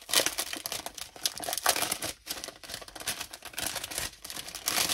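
Small clear plastic bags of diamond-painting gems crinkling and rustling as they are handled, in uneven rustles with short pauses between them.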